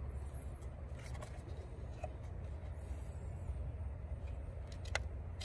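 Faint plastic clicks from a truck side-mirror marker-light lens and its wiring connector being handled, with a sharper single click about five seconds in, over a steady low rumble.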